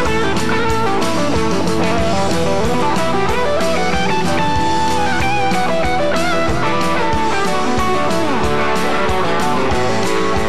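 Live band music, guitar-led, over a steady drum beat.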